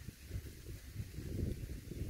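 Low, irregular rumble of wind buffeting the microphone.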